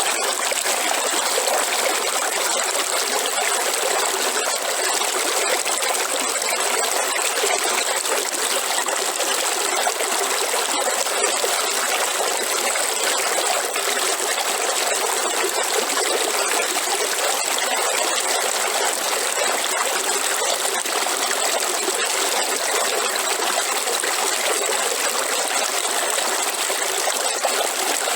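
River water flowing and splashing, a steady rushing trickle without pause.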